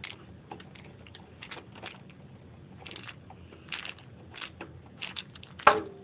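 Phillips screwdriver turning out the rear cover screw of an Alienware X51 case: scattered light metal clicks and ticks, with one louder click near the end.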